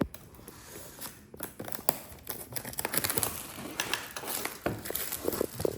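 Product box being opened by hand: cardboard and packaging being handled, with a sharp click at the start, then irregular crinkling, scraping and ticking that grows busier after a second or so.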